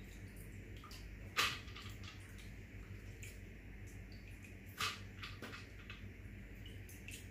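Light knocks and clicks of dishes and containers being handled at a kitchen counter, the two sharpest about a second and a half and five seconds in, over a steady low hum.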